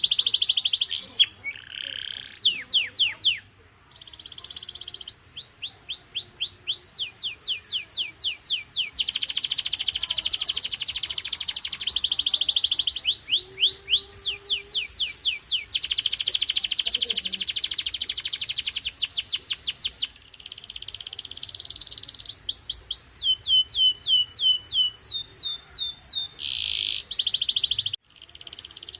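Canary singing a long, continuous song of high-pitched phrases: fast runs of repeated downward-sweeping notes and buzzing rolls, one tour after another with only brief breaks.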